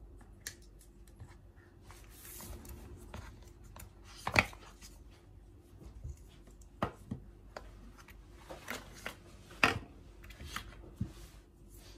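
Apple AirPods Pro retail packaging being handled on a wooden table: cardboard box, paper inserts and the plastic charging case rustle, slide and click. Three sharp knocks come about four, seven and ten seconds in, the first and last the loudest, as pieces are set down.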